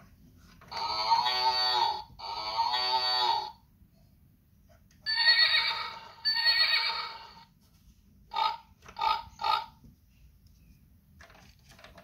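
Kiddieland Light and Sound Activity Farm Yard toy playing recorded farm-animal calls electronically as its buttons are pressed: two long calls, then two more long calls, then three short ones in quick succession.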